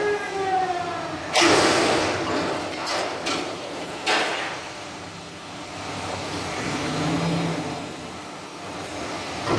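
Peterbilt garbage truck at work: a loud burst of hiss about a second and a half in, then several sharp clanks and bangs of metal, with a low hum near the end.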